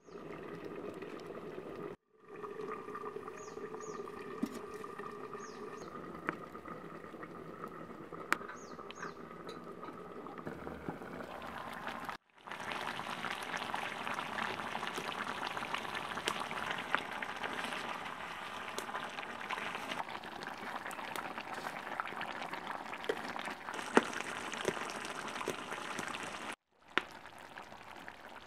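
Chicken curry bubbling and spitting in a metal pan over a wood fire, a steady bubbling full of small crackles. It is loudest through the middle part.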